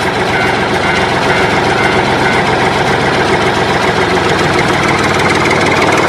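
Heavy diesel engine of a JCB wheel loader running steadily.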